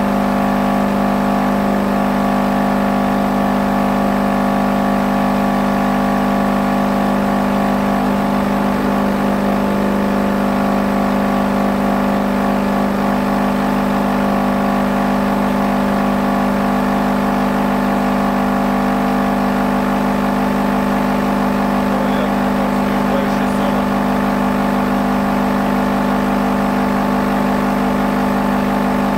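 Ural TT 10 car subwoofer driven with a steady sine test tone at about 1,260 W, more than double its rated 500 W, producing a loud, unchanging low note with a buzz of many overtones.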